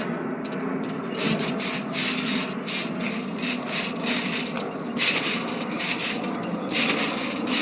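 Bubble wrap crackling and popping irregularly under people bouncing on a trampoline, with louder bursts of pops about five and seven seconds in, over a steady low hum.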